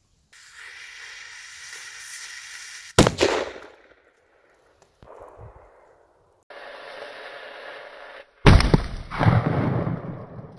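Dum Bum firecracker fuse hissing for about three seconds, then a sharp bang. Another fuse hisses for nearly two seconds before a second loud bang, with a further burst under a second after it.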